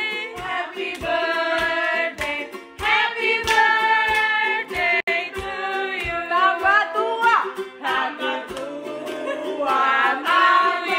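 Several voices singing a birthday song in Indonesian, with hands clapping along in time.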